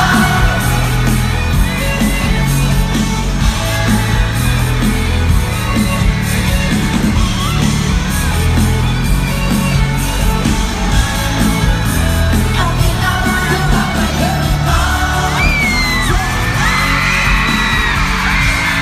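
Live pop music played loud over a large venue's sound system: a steady, heavy bass beat under singing, with fans yelling and whooping, most thickly near the end.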